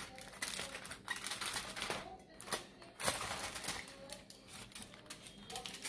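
Aluminium foil crinkling and crackling as it is unwrapped and peeled off a flan tin, in bursts of rapid crackles with a short lull about two seconds in.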